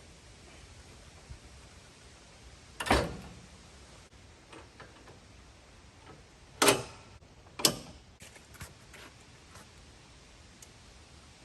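Three sharp knocks, about three, six and a half, and seven and a half seconds in, with a few faint clicks between them over a low background.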